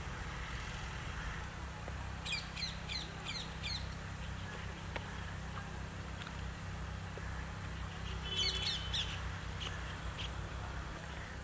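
Small birds chirping: a run of five quick, high chirps about two seconds in, and a louder short burst of chirps about eight seconds in, over a steady low rumble.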